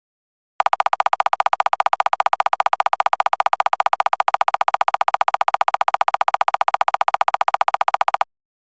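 Electronic pulsing tone repeating rapidly and evenly, about ten pulses a second, at a steady pitch. It starts abruptly about half a second in and cuts off abruptly near the end.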